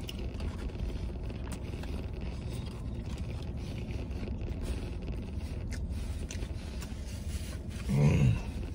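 Eating sounds inside a truck cab: faint clicks and scrapes of a plastic fork in a paper fry tray and chewing, over a steady low cabin rumble. About eight seconds in, a man gives a short low hum with his mouth closed.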